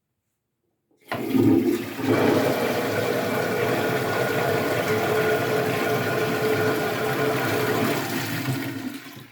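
Toilet flushing about a second in: a sudden rush of water, then the tank refilling with a steady tone over the hiss, tapering off near the end. The toilet's muffler has just been repaired, and the owner judges it a pretty big improvement.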